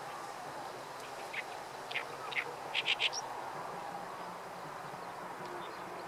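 Oriental reed warbler singing: a few scattered short, high notes, then a loud quick cluster of notes about three seconds in.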